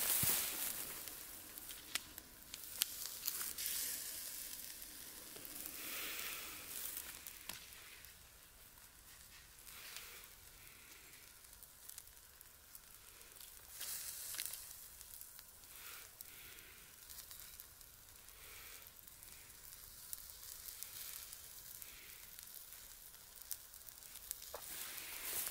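Sausages sizzling on a stick over glowing embers: a steady hiss with small crackles and pops, and a few louder rustling swells as they are handled.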